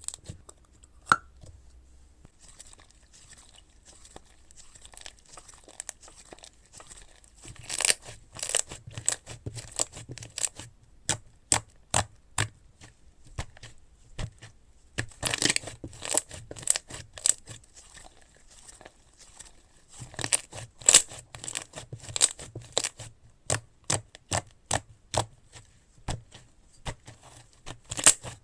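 Slime being handled and worked, giving irregular sharp crackles and pops. They are sparse at first and then come in denser runs several times.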